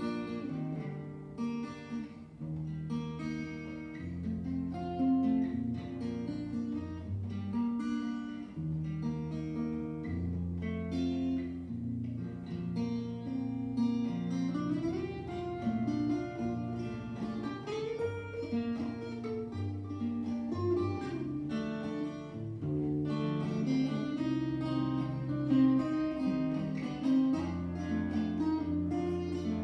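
Steel-string acoustic guitar played solo and instrumental, a picked melody over bass notes.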